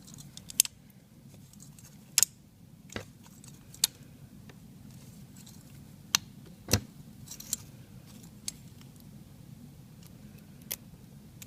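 Scattered sharp metallic clicks and clinks of a residential key-in-knob door knob's parts being worked apart by hand, about ten irregular ticks with a few louder snaps among them.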